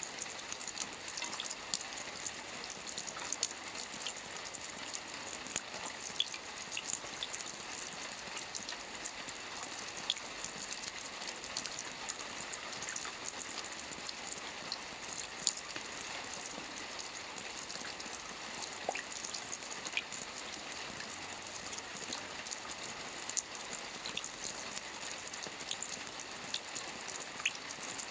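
Steady rainfall: an even hiss of rain with many scattered individual drops landing close by.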